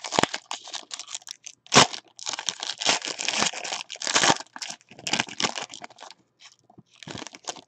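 Foil wrapper of a trading card pack being torn open and crinkled by hand: dense crackling and ripping, with a sharp loud rip just under two seconds in and heavy crinkling over the next few seconds, tapering off toward the end.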